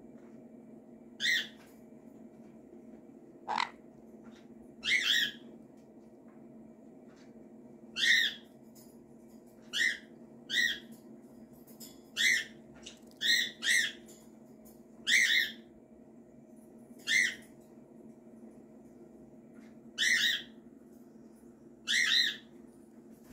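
Short parrot squawks, about a dozen, spaced irregularly one to three seconds apart, with one quick upward-sweeping call a few seconds in. A faint steady hum runs underneath.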